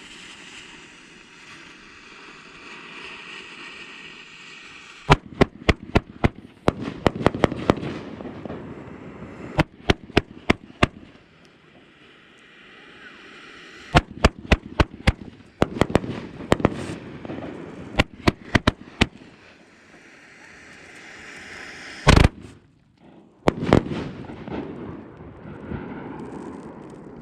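El Torro Purple Storm 25-shot 500 g fan cake firing. Clusters of rapid sharp reports come in volleys, with crackling and hissing between them, and one single heavy bang comes a bit over three-quarters of the way in, followed by more crackle.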